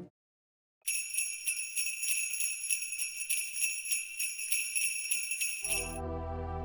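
Sleigh bells shaken in a steady rhythm, starting about a second in and stopping near the end, as soft, sustained instrumental music comes in.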